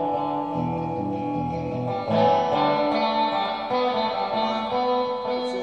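Electric guitar played clean through a Fender reissue tube spring reverb unit: picked notes and chords ringing out and blending in the reverb, with a louder chord struck about two seconds in.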